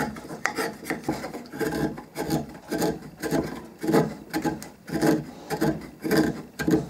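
A freshly sharpened bench chisel paring oak by hand, in a quick run of short slicing strokes, a little under two a second. The strokes test the newly honed edge.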